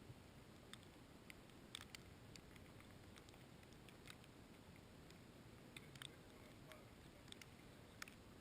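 Near silence: faint irregular clicks and ticks over a low background hiss.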